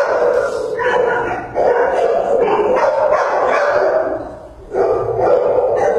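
Many dogs barking at once in animal-shelter kennels, their barks overlapping into a continuous din, with a brief lull about four seconds in.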